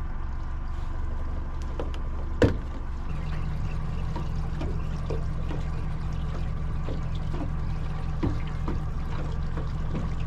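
Small boat's outboard motor running steadily, with water splashing and trickling along the hull. A sharp knock comes about two and a half seconds in, and just after it the engine's hum steps up and holds steady.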